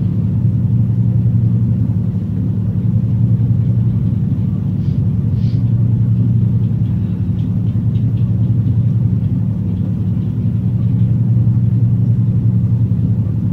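An electrical appliance running with a steady low hum, with a few faint ticks above it in the middle.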